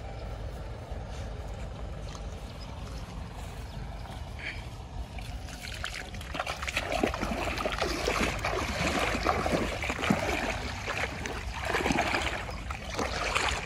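Someone wading through shallow pond water: irregular splashing and sloshing that starts about six seconds in and carries on. Before that, only a low steady rumble.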